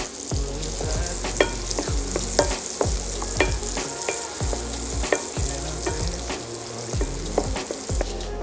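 Vegetables sizzling steadily in a hot frying pan with oil and butter.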